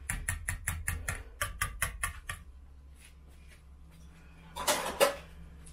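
Wire whisk beating a thick lime mousse in a bowl, clicking against the side about five times a second, then stopping after two and a half seconds. A short, louder rustling clatter follows near the end.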